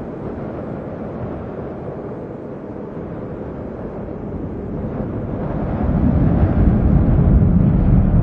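Steady low rumbling noise, growing louder about six seconds in.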